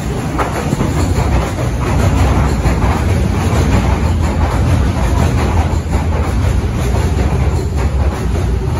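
CNR Changchun EMU (MTR C-Train) metro train pulling into the platform and passing close by: a loud, steady low rumble of wheels on rail with a rushing hiss, loudest a couple of seconds in.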